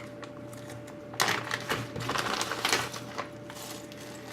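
Small hard plastic and metal parts clicking and rattling as rotary-tool accessories and their cases are handled, mostly in a cluster between about one and three seconds in, over a faint steady hum.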